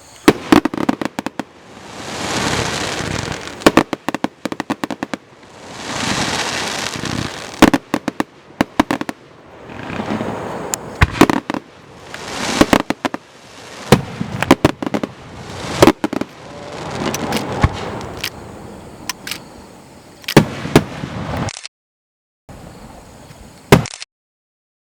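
Fireworks display: sharp, loud bangs of bursting shells, some single and some in quick clusters, between hissing swells that build and fade every few seconds. The sound cuts out twice briefly near the end.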